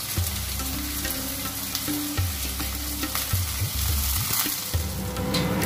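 Chopped onion, tomato and green chillies sizzling steadily as they fry in hot oil in a metal kadai: the masala being sautéed down for a fish curry.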